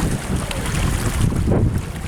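Strong wind buffeting the microphone: a gusting low rumble with a lighter hiss over it.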